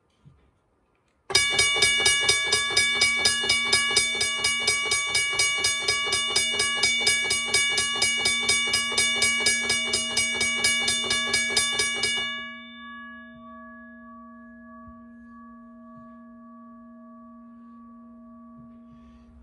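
WABCO model BA-10 mechanical railway crossing bell ringing. Its electric-motor-driven hammer strikes the black gong in rapid, even strokes, about three a second. The strokes stop suddenly about twelve seconds in, and the gong rings on with a few clear tones that slowly fade.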